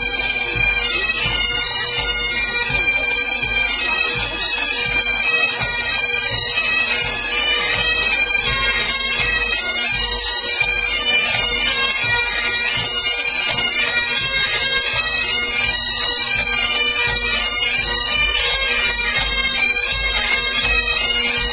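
Great Highland bagpipes of a pipe band playing a tune together over their steady drone.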